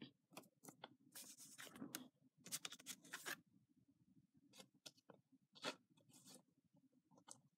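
Faint handling noises: a scattered run of short scrapes, rustles and clicks, busiest in the first three seconds or so, then a few isolated ones.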